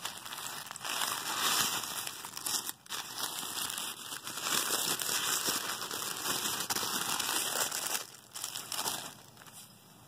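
Tissue paper crinkling and rustling as a wrapped bundle is unfolded by hand, nearly continuous for about eight seconds with a short break near three seconds, then quieter and patchier near the end.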